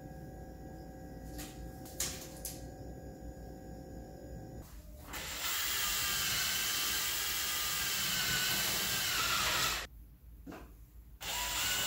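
Hand-held power drill boring into a plaster wall with sheet metal behind it. It runs steadily for about five seconds starting about five seconds in, stops for just over a second, then starts drilling again near the end.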